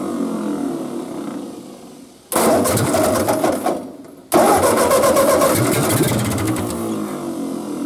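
Ford 8N's four-cylinder side-valve engine firing on gas squirted by hand into the carburetor. It catches abruptly a little over two seconds in and again about four seconds in, each time running only briefly before fading. The carburetor is gummed up with its needle stuck, so the engine has no fuel supply of its own.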